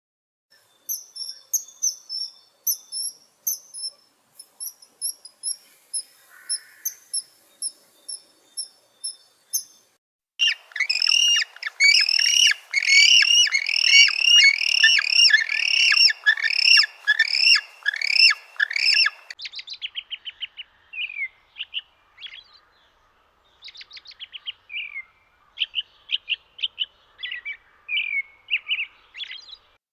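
Birds chirping in short, high, repeated calls, in three stretches. First comes a run of thin, evenly spaced chirps; about ten seconds in, a louder and denser run of many chirps takes over; about nine seconds later it gives way to sparser, scattered chirps.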